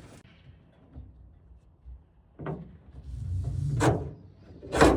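A ratchet strap and its hook being handled: a sharp knock about two and a half seconds in, a low rumble, then clunks near four and five seconds in, the loudest at the end.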